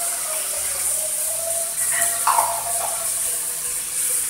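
Shredded chicken sizzling in a frying pan with oil and a sautéed garlic and coriander paste: a steady high hiss.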